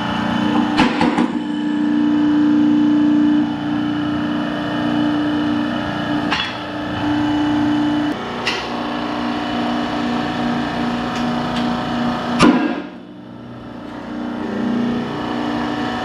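Hydraulic shop press running with a steady hum while its ram pushes a bearing out of a cast-iron baler gear. Sharp cracks sound about six and eight and a half seconds in, and the loudest comes about twelve and a half seconds in as the bearing breaks loose. Right after it the hum drops away briefly, then comes back.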